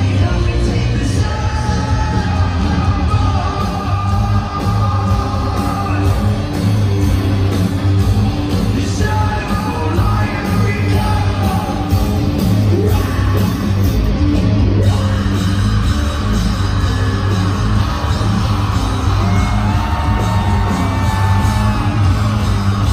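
Loud live hard rock band playing in an arena, with a heavy steady bass and singing and yelling voices over it.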